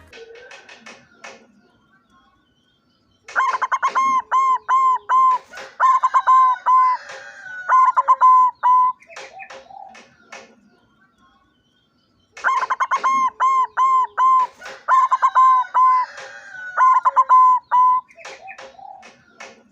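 White barred zebra dove (perkutut putih lurik) singing: two bouts of rapid repeated cooing notes, each lasting about six seconds, with a pause of a few seconds between them.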